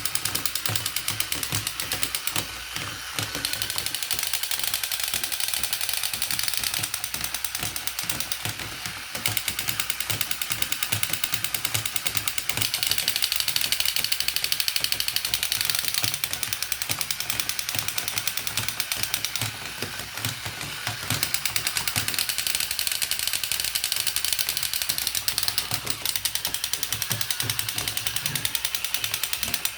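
Rapid, continuous mechanical clicking from a battery-powered toy vehicle's small motor and plastic gears, dipping briefly a few times.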